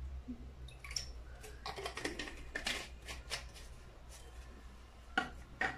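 Light clicks and taps of a glass bottle and small ceramic bowl being handled on a granite counter as orange blossom water is poured, with two sharper knocks near the end.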